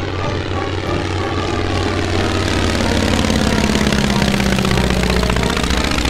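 Light airplane's piston engine and propeller running, growing louder from about three seconds in with an even, pulsing beat.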